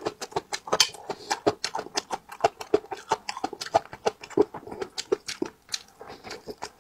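Close-miked wet chewing and lip-smacking of a mouthful of spicy braised fish: rapid, irregular clicks, several a second.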